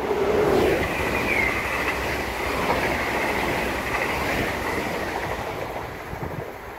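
Dutch NS double-deck electric passenger train passing through at speed: a steady rush of wheels and air with a high, steady whine, fading near the end as the train moves away. The low tone of its horn dies away in the first second.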